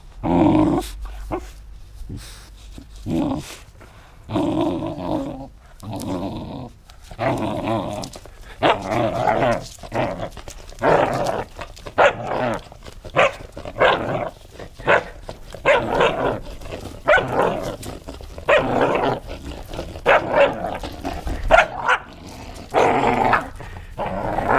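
Belgian Malinois play-growling and barking in short repeated bursts while tugging at a toy, the bursts coming faster and closer together from about a third of the way in.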